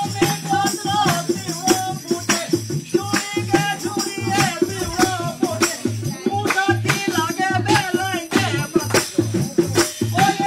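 Pahari jhuri folk music: a wavering, ornamented melody over a fast, steady clicking percussion beat and a low repeating drum note.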